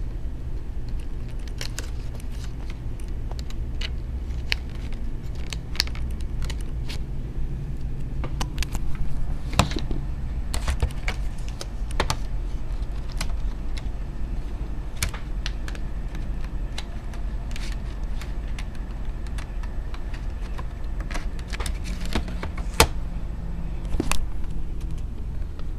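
Irregular light clicks and taps of handling, over a steady low hum; one sharper click near the end.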